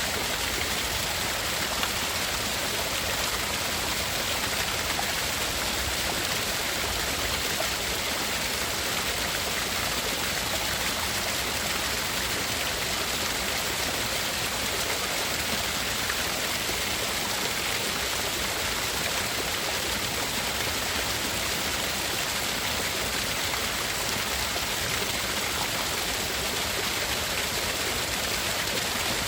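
Steady, unbroken rushing noise, like a stream or rain, used as a tinnitus-masking sound. Two narrow bands are cut out of its highest treble.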